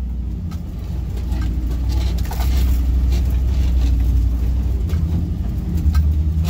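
LS V8 engine of a Nissan Patrol G60 running at low trail speed, heard from inside the cab as a steady low rumble. Scattered knocks and rattles come from the body and tyres working over a rocky dirt trail.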